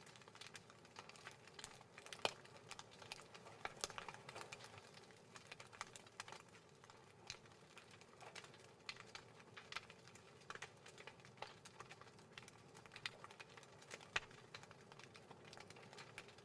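Faint, irregular clicking and crackling over a low hiss, several small ticks a second at no steady rhythm.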